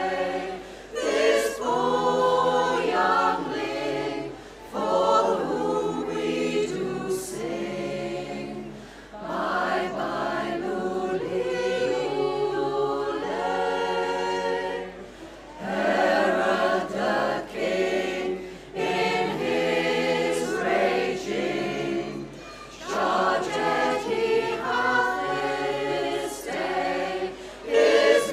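A women's choir singing a cappella, several voice parts at once, in phrases broken by short pauses for breath.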